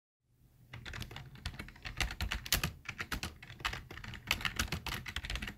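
Rapid computer keyboard typing, a quick irregular run of key clicks that starts just under a second in and cuts off abruptly at the end.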